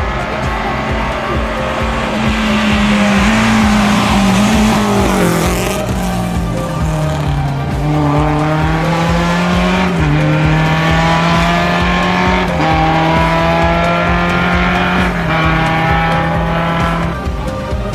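Background music with a steady beat, over a Lada rally car's engine revving hard and its tyres squealing as it is thrown through a tyre chicane.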